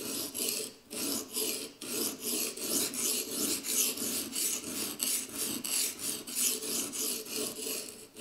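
Coarse 120-grit Edge Pro Apex sharpening stone, wetted, scraped back and forth along the steel edge of an ESEE-4 knife. It makes a rasping scrape in quick repeated strokes, a few a second. The coarse stone is grinding off steel to bring an uneven bevel to one consistent angle.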